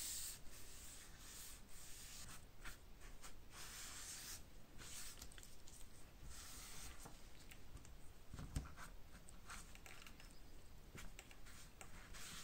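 A cotton pad wiping and rubbing over the leather panel of an antique bellows while the leather is treated: a series of soft, uneven brushing strokes, with one soft knock about eight and a half seconds in.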